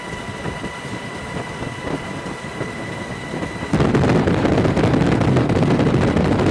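Steady vehicle and wind rumble with a faint high whine, jumping suddenly much louder about four seconds in.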